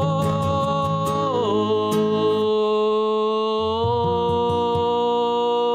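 A man singing one long held note that slides down in pitch about a second and a half in and then holds, over acoustic guitar chords.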